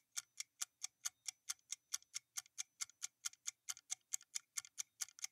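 Quiz countdown timer sound effect: fast, even clock ticking, about four and a half ticks a second, while the answer is awaited.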